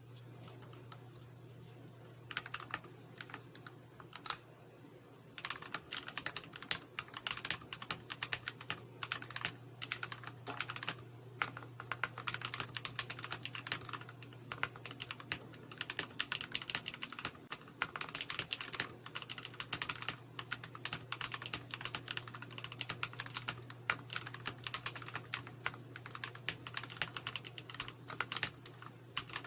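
Typing on a TOM680 mechanical keyboard with lubed Akko CS Rose Red switches and Holee-modded, lubed plate-mounted stabilizers. A few separate keystrokes come first, then continuous fast typing from about five seconds in. A faint steady low hum sits underneath.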